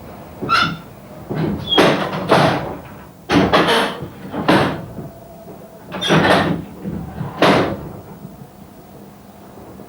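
Steam locomotive City of Truro, a Great Western 4-4-0, giving slow, uneven exhaust chuffs, each a short hissing blast, as it works at low speed.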